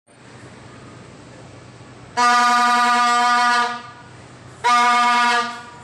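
Two blasts on a plastic toy trumpet, each one steady held note, the first about a second and a half long, the second about a second, with a short gap between.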